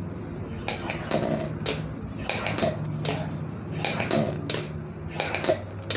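A person drawing breath in hard through a handheld spirometer, used as a breathing exercise to build lung capacity: a series of short, sharp pulls, irregularly spaced, over a steady low hum.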